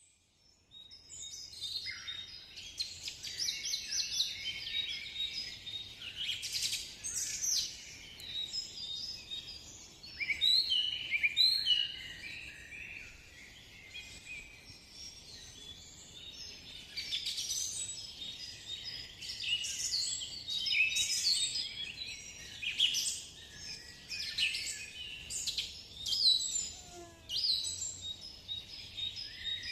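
A chorus of many birds singing and chirping at once, with overlapping high chirps and trills that start about a second in.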